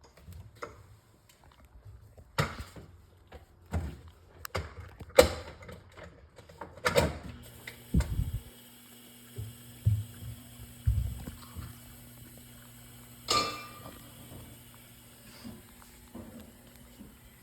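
Dishes and utensils being handled, a run of sharp clacks and knocks, then a faint steady hum from about halfway with a few dull thumps and one more clack.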